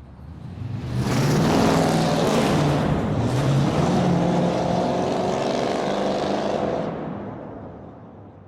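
Muscle car engine running loud, its note wavering up and down. It swells in over about the first second and fades away over the last second and a half.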